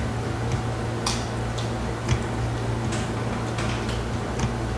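Close-miked mouth sounds of a man eating kabsa rice and meat by hand: irregular wet chewing clicks and lip smacks, about two a second, over a steady low hum.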